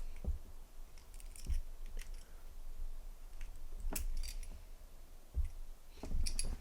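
Light metallic clicks and taps from handling a small butane lighter insert and its tools: single sharp clicks every second or so, with a quick cluster near the end.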